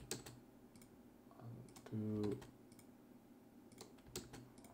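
Several separate computer keyboard and mouse clicks, with a short murmur from a voice about two seconds in.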